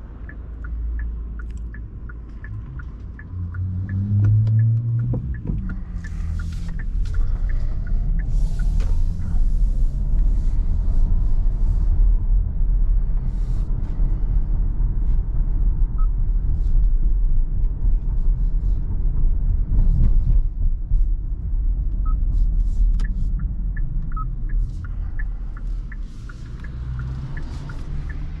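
Inside the cabin of a Kia Sorento with a 1.6-litre turbocharged four-cylinder hybrid drivetrain: the engine note rises as the car pulls away about four seconds in, then a steady low engine and road rumble as it drives on wet streets. Regular ticking of the turn-signal indicator, about two ticks a second, near the start and again near the end.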